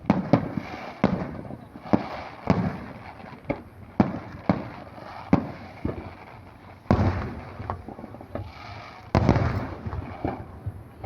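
Aerial fireworks shells bursting in quick succession: sharp bangs come every half second to a second, each followed by an echoing tail, with heavier volleys about seven and nine seconds in.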